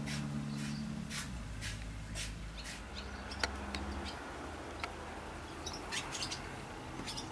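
Barn swallows chirping: short, high chirps spaced irregularly, a few every second or two. A low steady hum runs underneath for about the first four seconds.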